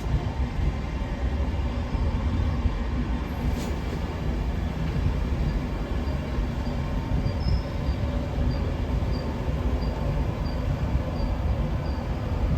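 Passenger train running at a station platform: a steady low rumble with a faint hum. From about halfway, a faint high ticking repeats about twice a second.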